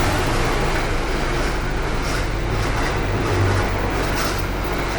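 Commuter train running, heard as a steady low rumble and running noise with a few faint clicks and rattles.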